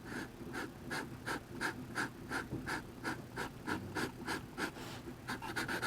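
Green Sharpie marker colouring back and forth on a paper drawing pad, an even rhythm of scratchy strokes about three a second that gets quicker near the end.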